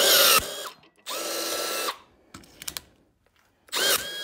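Power rivet tool's motor running in three short bursts of under a second each, its whine rising in pitch as each starts, as it pulls the mandrel of a blind rivet to set it.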